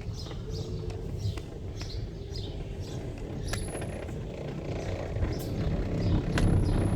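Car creeping forward in first gear with the brakes dragged against the throttle, giving a steady low engine and rolling rumble. A faint brake squeal comes and goes from pads made glazed or rubbing, which this half-pressure drive is meant to scrub in.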